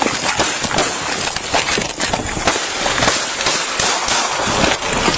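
Body-worn camera microphone rubbing and knocking as its wearer moves, a dense crackling rustle with no single dominant bang.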